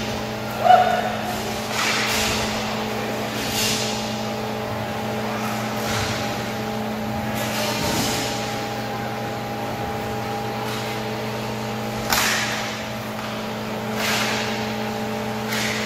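Inline roller hockey play: skate wheels rolling and scraping on the rink floor, with sticks and puck giving occasional sudden knocks and clacks, the sharpest one about twelve seconds in. A steady mechanical hum of several pitches runs underneath throughout.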